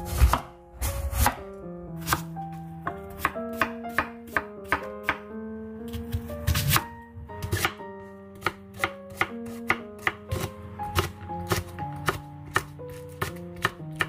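Kitchen knife chopping on a wooden cutting board, cutting an apple, then an onion, then red chilies. The strikes come irregularly, from single cuts to quick runs of several a second, over quiet background music.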